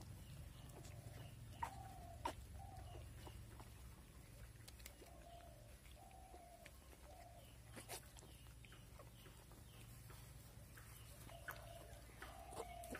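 Newborn piglets giving faint short squeaks, several single calls spread through, with a few soft clicks of movement in the straw bedding.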